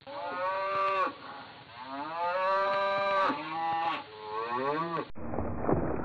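Cattle mooing: about four long, drawn-out moos, one after another. About five seconds in the moos cut off abruptly and a rougher, noisier sound takes over.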